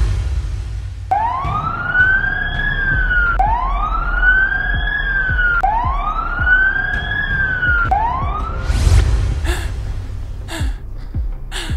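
Ambulance siren sound effect wailing in four slow rising-and-falling sweeps over a low vehicle rumble. The siren stops about three-quarters of the way through, followed by a few short sharp clicks.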